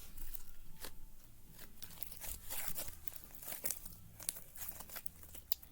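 Sticky slime being stretched and pulled apart by hand, giving irregular crackling and tearing sounds.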